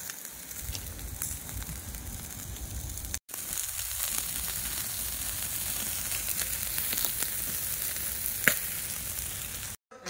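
Shashlik, skewered marinated meat, sizzling over hot coals: a steady, hissing sizzle with scattered sharp crackles, broken by a brief cut about three seconds in.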